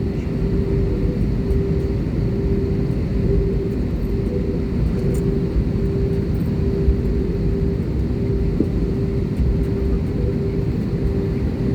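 Airliner jet engines running, heard from inside the passenger cabin as a steady, loud low rumble with a steady hum over it, during the takeoff phase.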